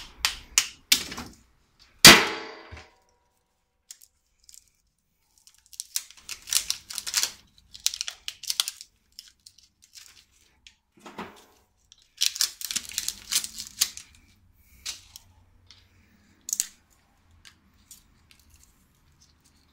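Hand tools working steel transformer scrap: sharp metal clicks and, about two seconds in, one loud metal clank that rings briefly, followed by bursts of rapid scraping and rattling.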